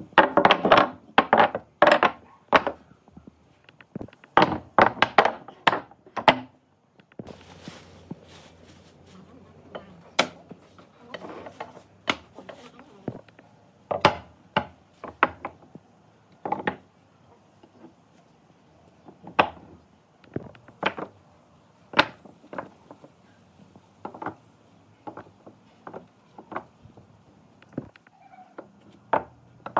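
Irregular knocks and taps of hand tools striking wood: a quick run of strikes in the first six seconds, then slower single knocks every second or two.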